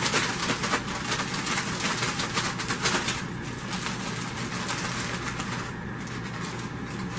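Loose soil substrate (Zoo Med ReptiSoil) being poured and shaken out of a crinkling plastic bag into a glass terrarium: a dense crackle of bag and falling soil, heaviest in the first three seconds, then lighter.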